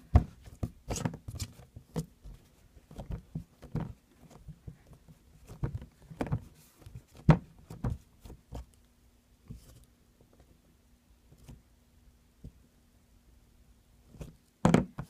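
Play-Doh being pressed and handled with plastic stampers: irregular soft taps and knocks, busy for the first nine seconds or so and then sparse, with a louder pair of knocks near the end. A faint steady hum sits underneath.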